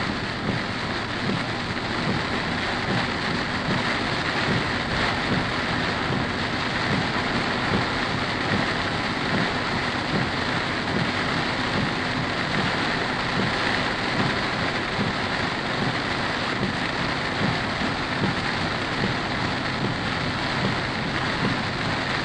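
Heavy rain falling steadily on a car, heard from inside as a dense, even patter.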